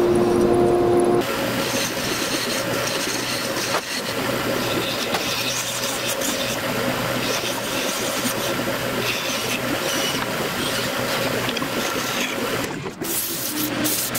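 Wood lathe spinning a wooden shift knob while a turning chisel cuts it: a steady scraping of steel on the turning wood over the lathe's motor hum, after a plain steady hum for about the first second. Near the end the scraping gives way to sandpaper rubbing against the spinning knob.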